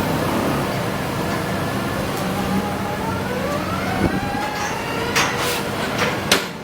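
Hydraulic rotary piling rig's diesel engine running steadily, with a rising whine partway through. A few short, sharp noisy bursts follow near the end.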